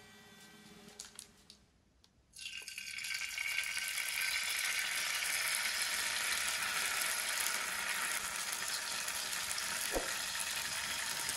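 Jalebi batter piped into hot oil in a frying pan, sizzling steadily. The sizzle starts suddenly about two seconds in, after a quiet start with faint ticks as oil is poured into the pan; there is one light tap near the end.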